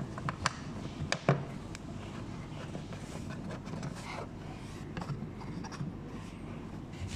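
A few sharp clicks and light knocks from hands handling parts during a cabin air filter change, the loudest about a second in, then softer rustling and tapping over a low steady hum.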